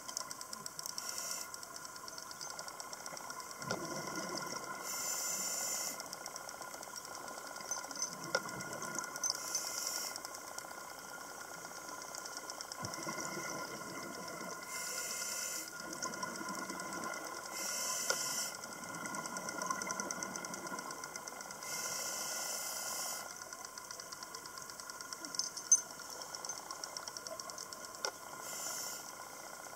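Scuba regulator breathing underwater: bursts of hiss about a second long come every few seconds, with lower bubbling in between, over a steady faint whine.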